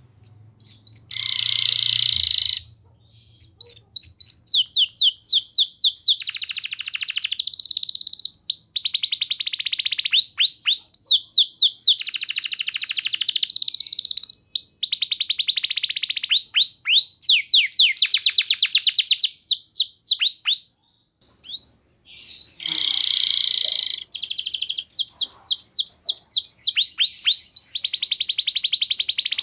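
Domestic canary singing a long, loud song made of fast trills: rapid runs of repeated downward-sweeping whistled notes, broken by a couple of harsher buzzy rolls and one short pause about three-quarters of the way through.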